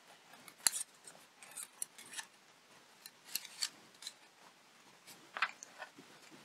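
Light, scattered clicks and rustles of hands handling small shrunken plastic petals and bamboo chopsticks on a paper towel.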